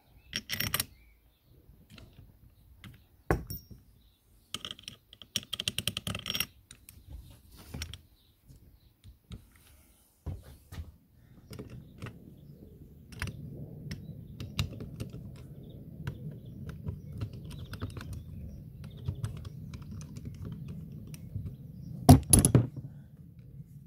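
Clicks and taps of plastic and metal parts of a Kärcher K5 high-pressure pump being handled and fitted together by hand, with a quick run of small clicks about five seconds in and a loud double knock near the end. A low steady rumble comes in about halfway through.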